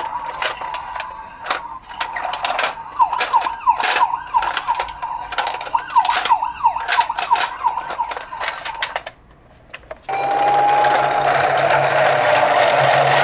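Toy emergency-vehicle sirens (minicar ambulance and police cars): a steady electronic siren tone with quick falling chirps over a clatter of plastic clicks. The siren stops about nine seconds in, and after a short pause a louder, steady siren tone with a hiss starts.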